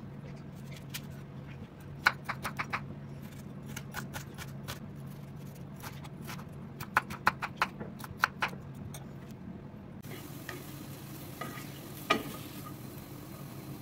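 Knife chopping an onion on a wooden cutting board in short runs of sharp strikes, over a steady low hum. Near the end, grated carrots sizzle in a frying pan as a spatula stirs them and knocks against the pan once.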